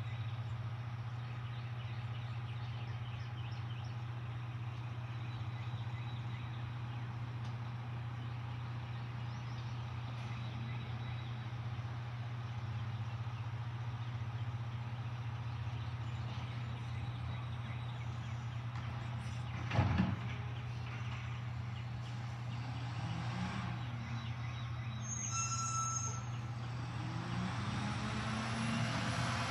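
Mack LR side-loader garbage truck's diesel engine running steadily at a distance. A single sharp bang comes about two-thirds of the way through as a cart is handled, and near the end the engine speeds up and grows louder as the truck pulls away.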